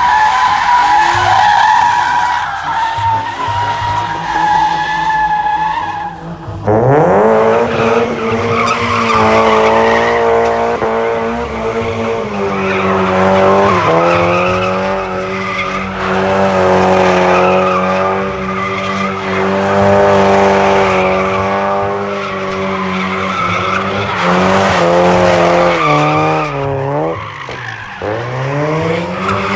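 A car drifting at high revs with its tyres squealing. A steady squeal fills the first few seconds; about six seconds in the engine revs up sharply and is held high, wavering, with a brief dip and then a deeper drop near the end before it revs up again.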